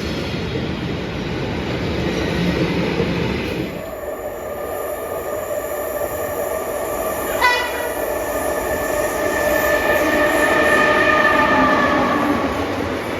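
Rumble of a train running that cuts off abruptly about four seconds in, then a train horn sounds one long, steady blast lasting most of the rest, with a brief sharp blip about halfway through it.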